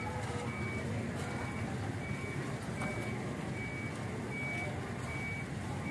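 A vehicle's reversing alarm beeping evenly, one short high beep about every three-quarters of a second, over the low rumble of an idling engine.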